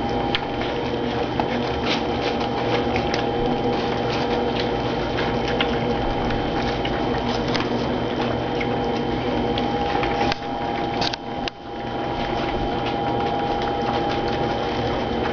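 A litter of goldendoodle puppies lapping and smacking at soft puppy food in dishes, a dense run of small wet clicks and slurps, over a steady hum. The sound briefly drops away about eleven seconds in.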